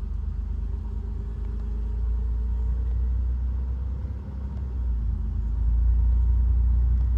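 Low rumble of a car driving, heard inside the cabin, growing louder about five seconds in. The driver is trying to pin down a speed-related noise like something flopping around inside a wheel rim, which she suspects is a broken-off tire pressure (TPMS) sensor loose in the rim.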